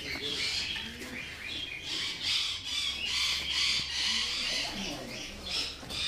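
Many birds chirping and squawking in a dense, continual chatter, with low cooing from pigeons about two-thirds of the way in.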